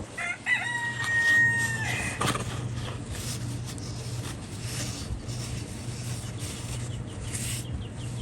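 A rooster crowing once, a single long call of about a second and a half that is held steady and then drops off.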